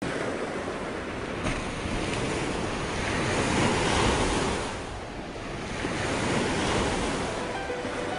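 Sea waves washing with wind, an even rush of noise that swells and ebbs every few seconds.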